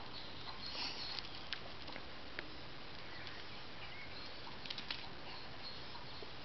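Faint, steady outdoor hiss with a few scattered light clicks and scuffs.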